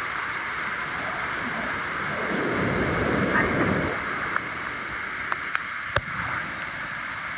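Steady rush of rain-swollen flowing water. A louder low rumble swells for about two seconds in the middle, and a few sharp clicks follow near the end.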